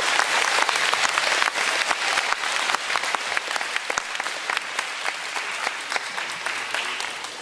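Crowd of schoolchildren and adults applauding, the clapping gradually thinning and fading toward the end.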